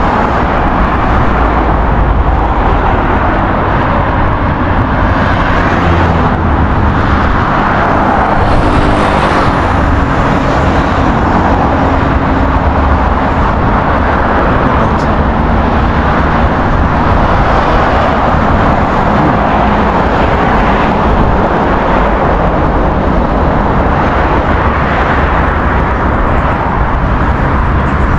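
Steady road traffic noise from cars driving on a multi-lane road below a footbridge, with a continuous low rumble.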